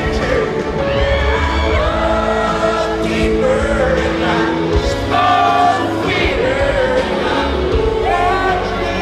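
Live country concert: a male lead singer singing over a full band, heard from the audience.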